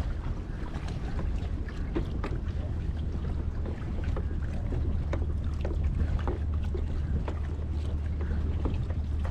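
Steady low wind rumble on the microphone, with scattered faint clicks and ticks.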